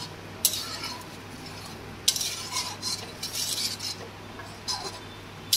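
White plastic spatula stirring a thick prawn-and-yam curry in an aluminium kadai, scraping against the metal pan in several separate strokes.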